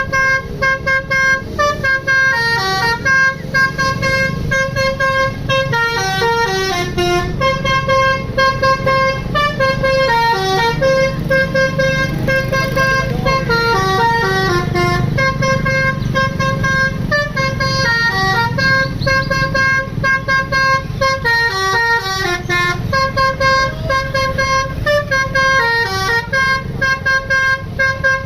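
Basuri 'telolet' bus horn playing a melody of held notes that step up and down without a break, over the bus's engine running.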